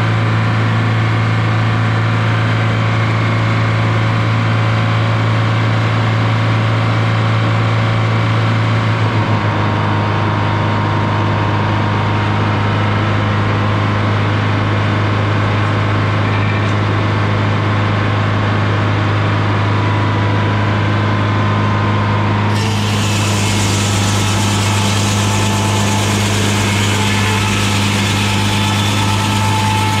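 GM 4-71 "Screaming Jimmy" two-stroke supercharged diesel running steadily with a low drone as it drives a big circular sawmill blade through cedar. Its pitch dips slightly about nine seconds in. A brighter hissing noise comes in suddenly about two-thirds of the way through.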